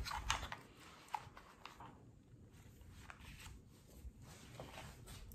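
Faint handling sounds of a pistol holster being tucked into a trouser waistband: a few small clicks of the hard holster in the first couple of seconds, then soft rustling of a T-shirt being pulled down over it.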